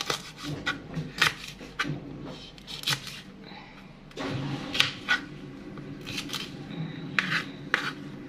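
Kitchen knife cutting a green bell pepper on a plastic cutting board: irregular sharp knocks of the blade against the board. A low steady hum comes in about four seconds in.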